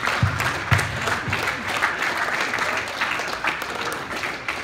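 A group clapping and applauding, many hands together, with a few low thumps in the first second or so.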